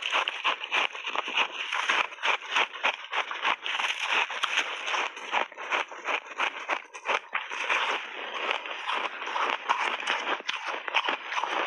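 Close-miked crunching and chewing of hard ice chunks layered with milk powder and crunchy mixed berries: a dense, irregular run of crisp crunches.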